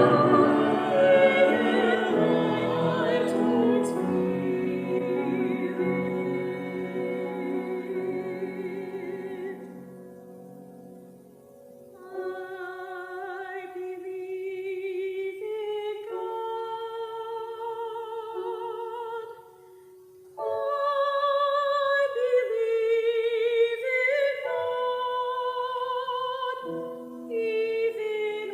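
Classical-style singing with strong vibrato. A full chord with low notes rings and fades over the first ten seconds, then held sung notes go on with short breaks between phrases.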